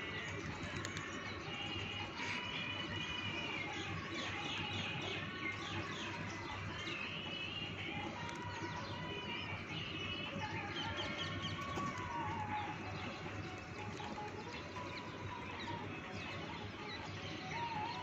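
Many small birds chirping and twittering continuously, in quick overlapping calls.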